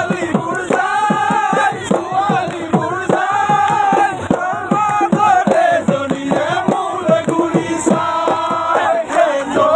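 Loud music with a fast steady beat and a crowd of men's voices singing and chanting together.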